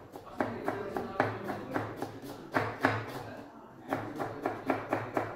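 Chef's knife rapidly chopping a red onion on a plastic cutting board: quick runs of knocks, about five a second, with a short pause a little after three seconds in.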